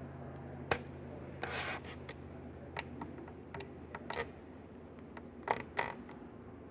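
Scattered light clicks, taps and a brief rustle of hands handling small objects, over a faint steady low hum.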